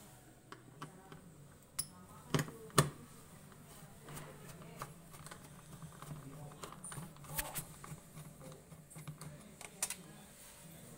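Scattered light clicks and taps, with two louder knocks between two and three seconds in, over a low steady hum.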